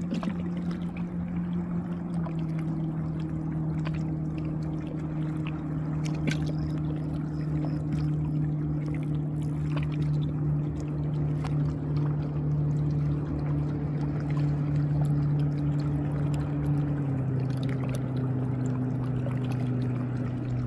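Boat motor running steadily, its pitch stepping down about two seconds in and again near the end, over a wash of water.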